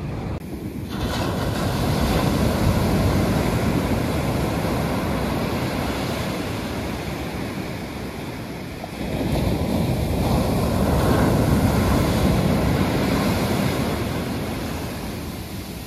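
Ocean surf breaking into foam and washing up a sandy shore, twice: the first wave builds and slowly fades, and the second comes in more suddenly about nine seconds in, then fades the same way.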